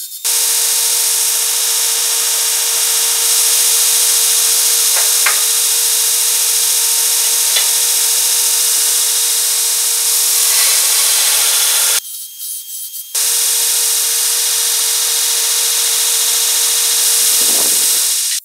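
Northridge belt grinder running with metal pressed against its abrasive belt: a loud, steady grinding hiss over a constant hum. It drops out for about a second around twelve seconds in, then resumes.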